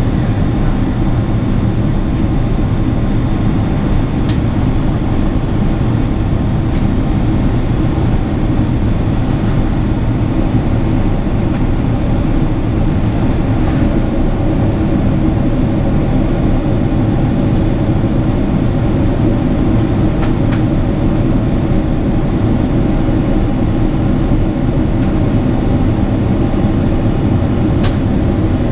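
Boeing 777 cabin noise on approach: the steady drone of the GE90 turbofan engines and rushing airflow heard from a window seat, a deep even rumble. A faint tick sounds near the end.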